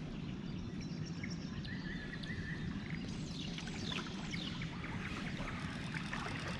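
Steady rush of flowing river water. Small birds call over it with short high notes, then a few quick falling whistles about three to four seconds in.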